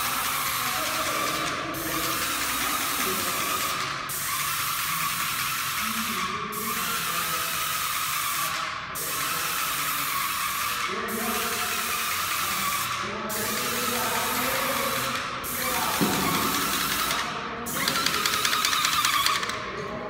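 Airless paint spray gun hissing in about nine bursts of roughly two seconds each, with brief breaks between passes, the last burst loudest. A rapid mechanical clatter runs underneath, from the Wagner ProSpray 24 piston pump.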